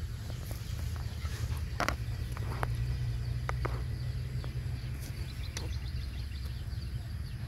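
A few short rustles and crackles of puppies shifting about on dry leaves and twigs, over a steady low rumble.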